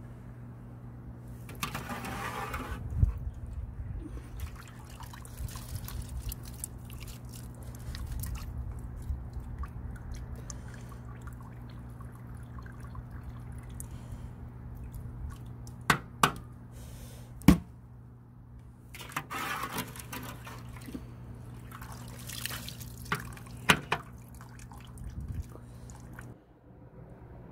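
Soy sauce splashing and dripping back into a large aluminium pot as the simmered ingredients are lifted out with a mesh strainer, in a few separate pours, with a few sharp clinks of metal. A steady low hum runs underneath.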